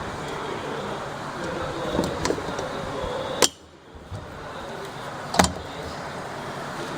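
Two sharp knocks about two seconds apart over a steady background hiss, from parts being handled while the control box is fitted to a whirlpool bathtub.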